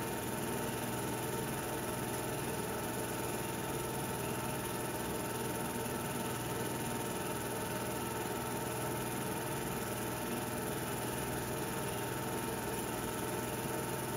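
Film projector running steadily during the transfer of a silent game reel: an even whirr and hiss with a constant low hum, with no sound from the game itself.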